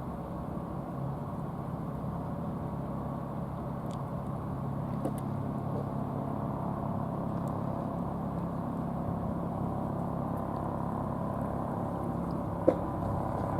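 An engine running steadily, a low hum with a faint tone that grows slightly louder, and one sharp click near the end.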